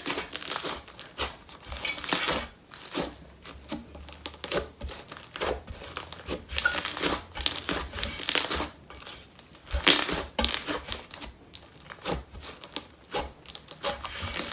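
Inflated, fluffed-up butter snow slime made with clay and instant snow being stretched and squished by hand, giving many irregular small crackles and pops.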